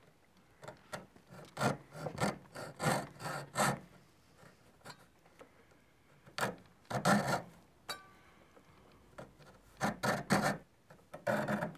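Coping saw cutting through a small wooden dowel, trimming about an eighth of an inch off an atlatl spur. It rasps in three runs of quick back-and-forth strokes, with pauses of about two seconds between the runs.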